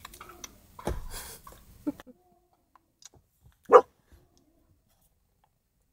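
A dog barks once, short and loud, a little past halfway. Before the bark there is a thump and about a second of rustling.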